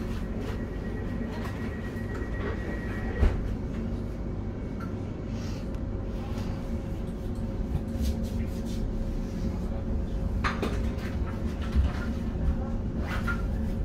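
Steady hum inside the carriage of a class 710 electric train, with a high steady tone for the first three seconds or so and a lower steady tone after that. A sharp click comes about three seconds in, and a few lighter clicks and knocks follow near the end.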